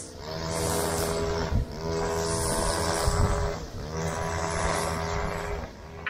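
An engine running with a steady drone, with two brief low bumps about one and a half and three seconds in.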